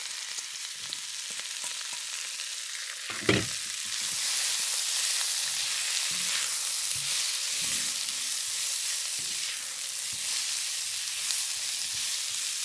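Sliced vegetables sizzling in hot oil in an electric wok as they are stirred with a plastic spatula, with one sharp knock about three seconds in. The sizzle grows louder about four seconds in.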